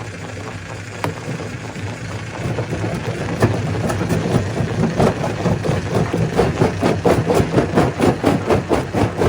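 Stone crusher machine running: a steady engine-like drone with a few sharp knocks, then a rapid rhythmic pulsing, about four beats a second, that builds from about halfway.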